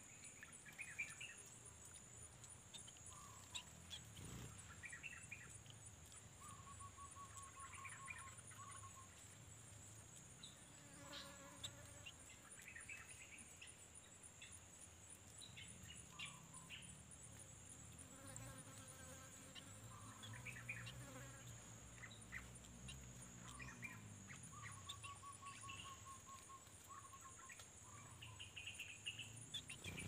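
Faint, steady high-pitched insect trill, with bird calls over it every few seconds: short chirps and a few brief rattling note series.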